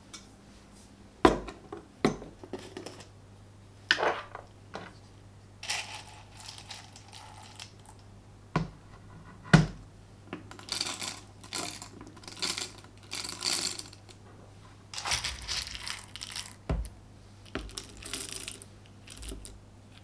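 Sharp clicks and knocks as the jar and a stainless steel hand coffee grinder are handled. Then whole coffee beans rattle into the grinder's metal hopper as they are spooned in, in several short bursts.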